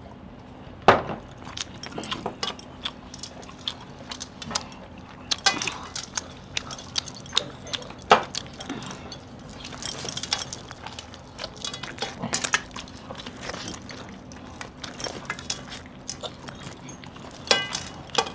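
Eating by hand: chicken being torn and chewed, with irregular sharp clinks of metal rings and bracelets against steel plates. A few louder knocks stand out, about a second in, around eight seconds in and near the end.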